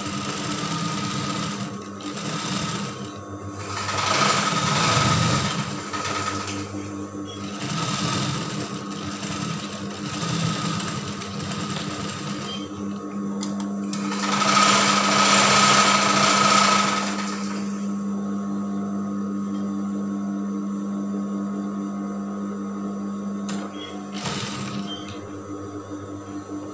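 Industrial sewing machine stitching fabric in several short runs, the longest and loudest near the middle, with a steady motor hum between runs.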